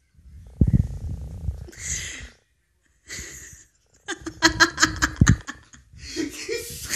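A man laughing: breathy bursts of laughter, then a quick run of short laugh pulses about four seconds in, and another breathy laugh near the end.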